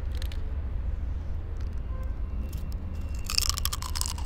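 Flaky croissant crust crackling as it is bitten into and chewed right at a small hand-held microphone, with a burst of crisp crunches about three seconds in.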